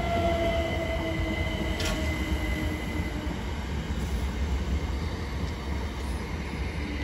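Class 377 Electrostar electric multiple unit arriving and slowing over a steady rumble. Its whine falls slowly in pitch and fades out about three seconds in, with a thin, steady high squeal above it.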